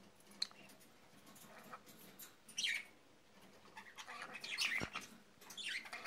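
Green-cheeked conure making a few short, soft, high-pitched chirps and squeaks. One comes about two and a half seconds in, a cluster follows around four to five seconds, and another comes near the end.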